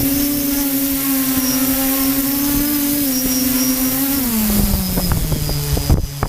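Radio-controlled model aircraft's motor running at a steady high pitch, then throttled back about four seconds in, its pitch sliding down before it fades near the end. Gusty wind buffets the microphone throughout.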